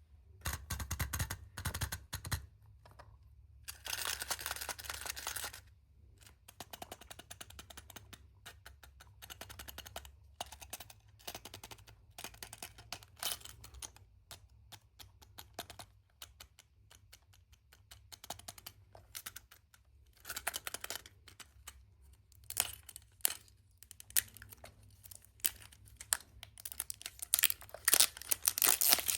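Wrapper packaging of a surprise egg being torn open and crinkled by hand, in irregular bursts broken up by many small clicks and taps.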